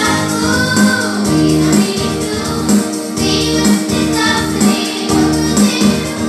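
Children singing into a microphone over an electronic keyboard accompaniment with a steady, rhythmic bass pulse; the voices come in and out between keyboard phrases.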